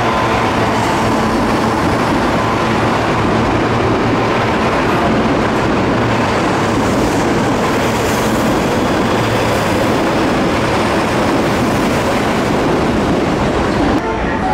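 Osaka Metro Midosuji Line train running past a station platform: a loud, steady rush of wheel and running noise on the rails, easing slightly near the end.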